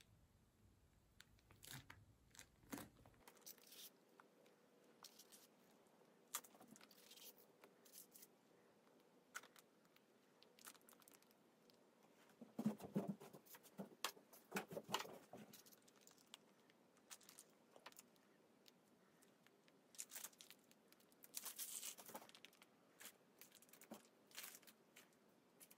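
Faint, intermittent crinkling and rustling of a plastic piping bag being squeezed and handled while piping batter, busiest about halfway through and again shortly before the end.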